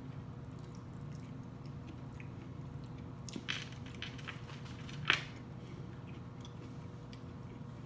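A person chewing a bite of fried green tomato, with a few soft mouth clicks a little past three seconds in and one sharper click about five seconds in.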